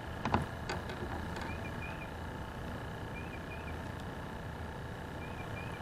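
Steady low background hum with a couple of light clicks in the first second and faint short chirps every couple of seconds.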